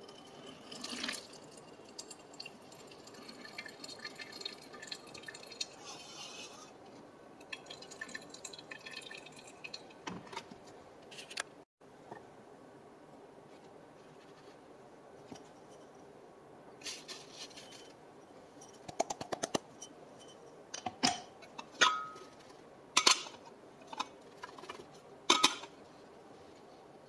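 Water trickling and dripping through a wet paper filter in a copper Hario V60 pour-over dripper. Later comes a string of sharp taps and clinks, the loudest near the end, as the dripper and its ground coffee are handled.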